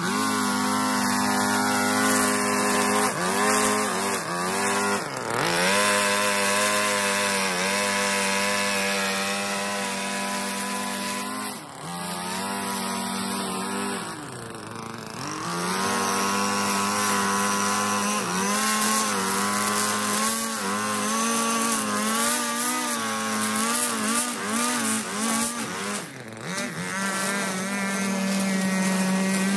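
String trimmer running at high speed, its pitch dipping and recovering several times as the throttle is eased off and opened again.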